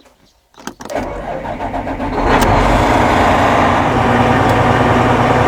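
Claas 750 combine harvester's diesel engine starting about a second in, then running loud and steady from about two seconds in, after the harvester's repair.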